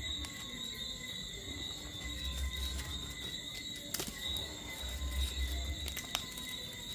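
Steady high chirring of night insects, over a low bass pulse that comes and goes, with two sharp pops from the charcoal fire about four and six seconds in.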